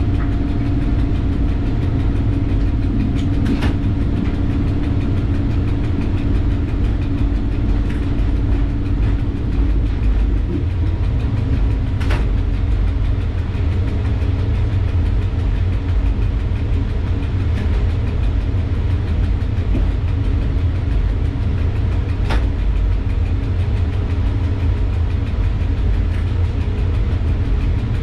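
Cab interior noise of an EU07 electric locomotive running light along the track: a steady low rumble with a hum that fades out about ten seconds in, and a few single sharp clicks several seconds apart.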